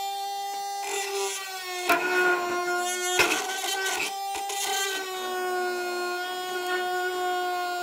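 Homemade cordless hand drill's small DC motor running with a steady high whine. About a second in, the bit starts cutting into material, adding scraping noise, and the motor's pitch dips several times under the load. About five seconds in it runs free and steady again.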